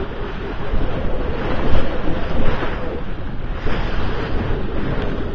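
Wind buffeting the microphone over the rush of sea water along a sailing yacht's hull under way, rising and falling with the waves.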